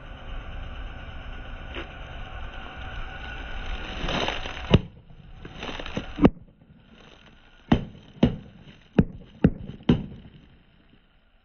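Car tyre rolling over a row of liquid-filled plastic pouches on concrete: a steady crackle and hiss of plastic under the tyre, then about seven sharp pops from about halfway through as pouches burst.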